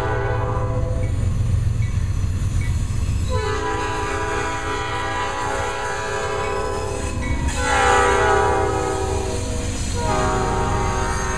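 Diesel locomotive horn on a Norfolk Southern GE C40-9W sounding a series of long blasts as the train passes close by: one blast ending about a second in, then three more after a pause of a couple of seconds, the loudest about eight seconds in. A steady low rumble of the locomotives' engines and wheels runs underneath.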